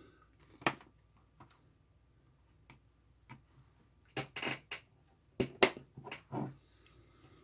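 Scattered clicks and light knocks of a test probe and its connectors being handled and plugged into a handheld oscilloscope, a few single clicks and then two short clusters in the second half.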